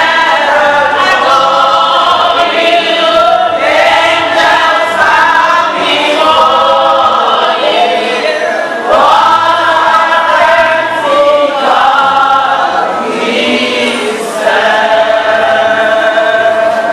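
A congregation singing a gospel worship song together, many voices in long, held phrases, with a woman's voice leading over a microphone.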